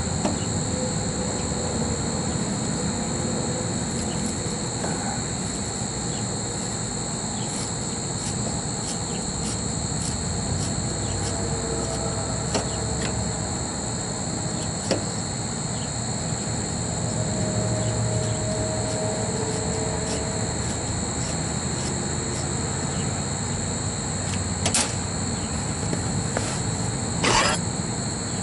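Steady high-pitched insect drone over a low background hum, with faint light clicks and ticks of hands working wire connections at a contactor in an open sheet-metal electrical panel.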